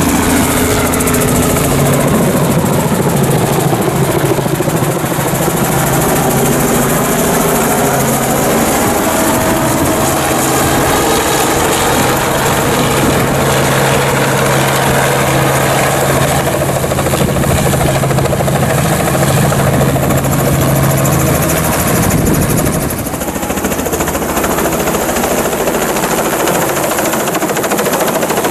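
Small two-bladed helicopter coming in to land, its rotor and engine running loud and steady. The low drone changes and drops slightly about three quarters of the way through.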